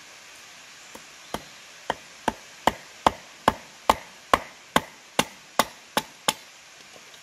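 Wood being chopped: a run of about a dozen sharp strikes at roughly two to three a second, starting about a second in and stopping shortly before the end, over a steady background hiss.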